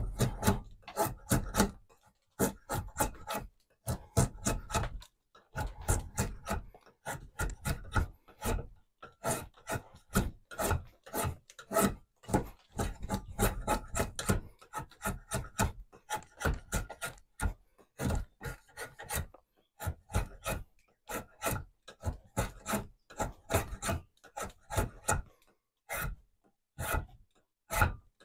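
Short, quick strokes of a hand-pulled blade shaving curls off the end of a wooden table leg, shaping it into a tapered round tenon. The strokes come about two to three a second, with brief pauses between runs.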